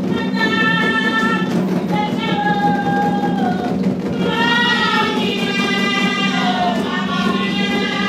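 Women's voices singing a Haitian vodou song together in long held phrases that slide down in pitch at their ends, over a steady low hum.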